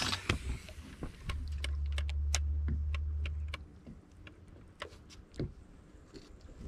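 Scattered sharp clicks and knocks as a bass and cull clips are handled inside a bass boat. A steady low hum sounds for about two seconds, starting about a second in.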